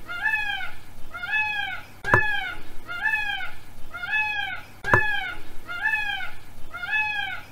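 Peacock calling in a fast series of short calls, each rising and falling in pitch, about three every two seconds and evenly spaced.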